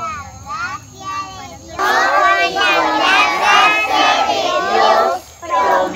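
A group of children singing together. Quieter at first, much louder from about two seconds in, with a short break near the end.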